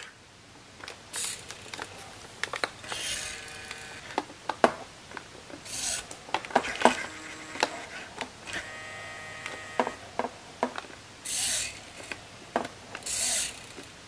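The small motors and plastic gears of a WowWee Alive Chimpanzee animatronic head, driven by remote control to move its face. Irregular clicks and ratcheting come in short spurts, mixed with brief whirring hisses and a faint motor whine in a couple of stretches.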